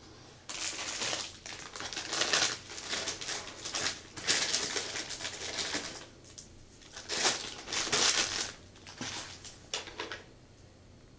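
Packaging crinkling and rustling as it is handled, in irregular bursts with short pauses, stopping shortly before the end.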